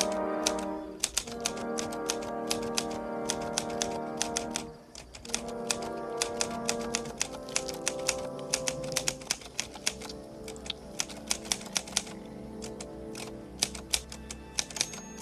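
Manual typewriter keys clacking in quick, irregular strokes throughout, over film-score music with long held notes that drops out briefly about five seconds in and fades in the second half.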